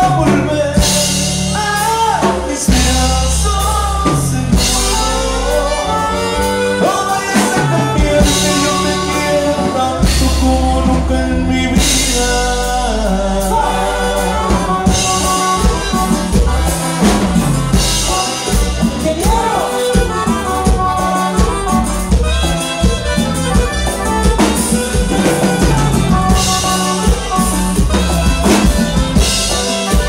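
Norteño band music with a singer over drums and bass, playing a steady dance beat.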